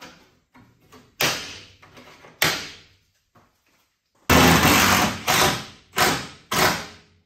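Sharp knocks and thuds from a split-jamb door and its frame as they are fitted into the doorway: two single knocks about a second apart, then after a pause a heavier one and three more in quick succession.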